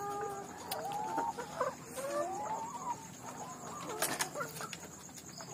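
A flock of caged brown laying hens clucking, many short rising and falling calls overlapping. A brief sharp click comes about four seconds in.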